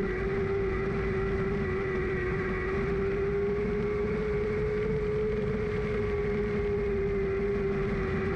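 Lightning Sprint race car engine heard from on board, running at steady high revs with only slight rises and dips in pitch, over a rough low rumble.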